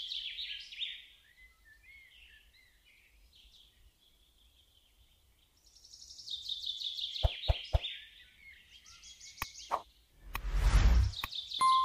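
Hot oil sizzling and crackling in a wok as garlic and then chopped vegetables fry. The sizzle fades for a few seconds and comes back. A few sharp knocks of the wooden spatula follow, and about ten seconds in a loud rush as chopped potatoes and carrots are stirred, the loudest sound.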